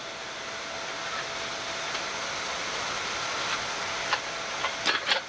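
Steady rushing hiss of a Boeing 787-9 flight deck in the climb: air streaming past the airliner's nose and windshield along with the cockpit air-conditioning, with a faint steady hum. It grows slightly louder partway through, and a few short sounds come near the end.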